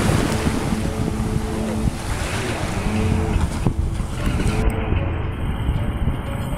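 Jet ski engine running on the water, its pitch rising and falling with the throttle, over waves and heavy wind noise on the microphone.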